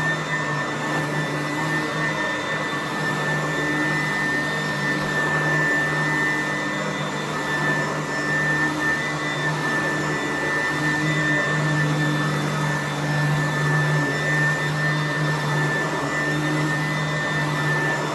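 Sanitaire upright vacuum cleaner running steadily while vacuuming carpet: a constant low motor hum with a high whine on top.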